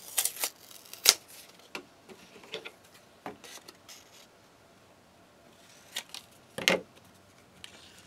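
Paper scraps being handled on a craft table: scattered light rustles and clicks, with a louder knock about two-thirds of the way through.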